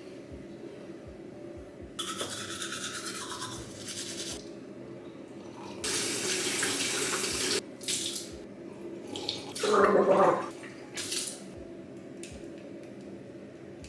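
Water splashing and rinsing at a bathroom sink in several short bursts, the loudest about ten seconds in, along with a toothbrush scrubbing teeth.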